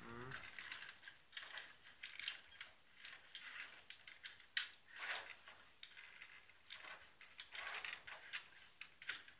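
Faint, irregular clicks and short rattles of toy parts being handled and fitted together by hand.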